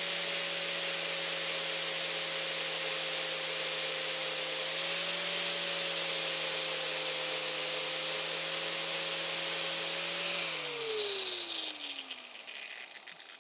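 A ball bearing on a shaft spun up very fast by a power tool: a steady high whir with a hiss over it. About ten seconds in, the pitch slides down and the sound fades as it winds down.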